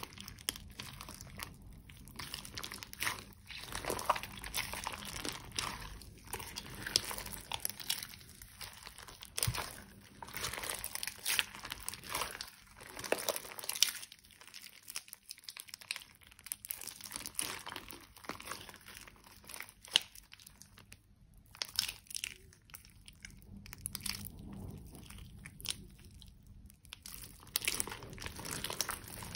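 Slime being kneaded, squeezed and stretched by hand in a glass dish: a continuous run of irregular sticky crackles, pops and squelches as the slime is pulled apart and folded.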